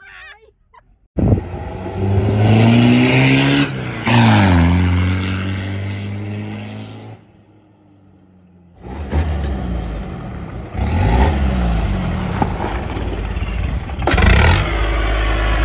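Mitsubishi Shogun 4x4 engine revving and accelerating: the pitch climbs for a couple of seconds, drops, then falls away slowly. After a short quieter spell around the middle it runs again, with the revs rising and falling.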